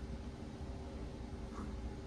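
Quiet indoor room tone: a steady low hum, with one faint brief sound about one and a half seconds in.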